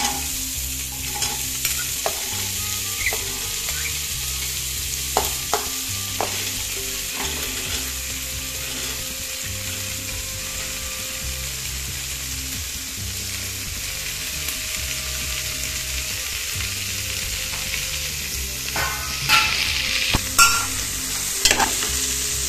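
Chopped green beans and diced carrots sizzling steadily in hot coconut oil in an aluminium pressure cooker. A metal spoon clinks against the pot and the steel plate now and then, with a run of clinks near the end.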